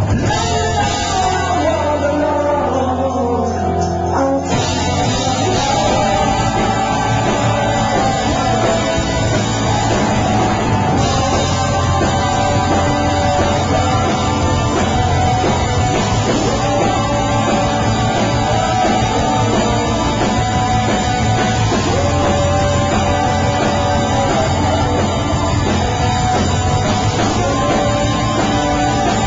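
Rock band playing loud, with electric guitars, bass, drums and singing. A guitar line slides downward over the first few seconds before the full band comes in about four seconds in.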